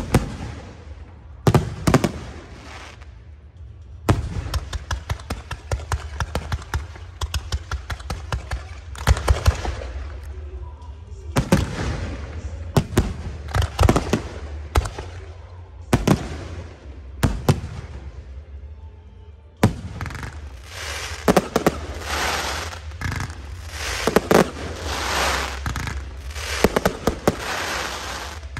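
Aerial fireworks going off in volleys: sharp bangs in quick clusters with stretches of dense crackling, busiest in the last third.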